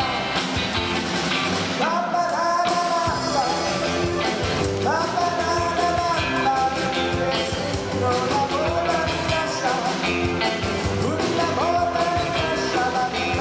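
Rock-style band music with a singer holding long, wavering notes over a steady beat.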